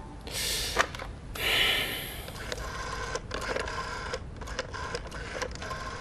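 Antique candlestick telephone being picked up and worked: a clatter as the receiver comes off its hook in the first two seconds, then about four seconds of quick, uneven mechanical clicking and rattling from the phone's wooden base as the exchange operator is called.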